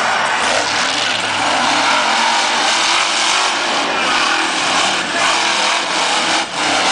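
Max D monster truck's supercharged V8 engine revving loudly, its pitch rising and falling, with a brief drop in level near the end.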